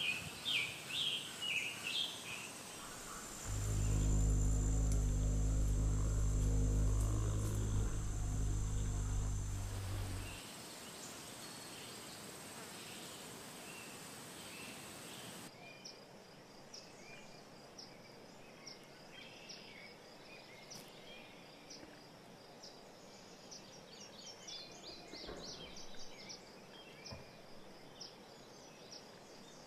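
Wildflower-meadow ambience: birds chirping and insects trilling. A few seconds in, a loud, low, steady-pitched buzz comes in and holds for about seven seconds. Afterwards only faint, scattered insect and bird chirps remain.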